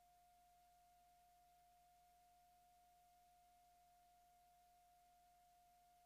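Near silence with one faint, steady, unwavering pure tone.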